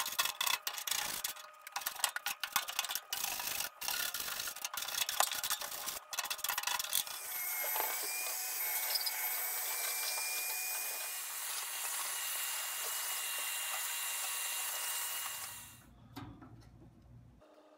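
A hand scraper grating over the bottom of a swamp cooler's pan in rapid, irregular strokes, loosening dried dirt and hard-water calcium buildup. About seven seconds in, a vacuum takes over, running steadily with a hiss and a thin whistle as it sucks up the loose debris, and it cuts off near the end.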